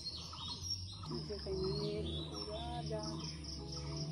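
Outdoor ambience of insects, crickets, trilling steadily, with short bird chirps over it.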